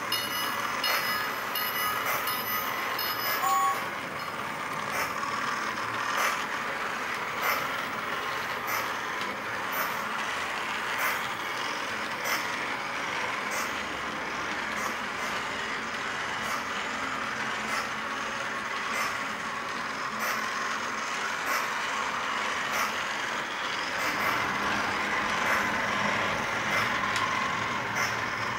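Lionel LionChief O-gauge James locomotive running around its track: a steady hum from the electric motor and gear drive with the wheels rolling on metal rails, and a light click a little more than once a second as the train passes over rail joints. A repeating bell tone rings for the first few seconds.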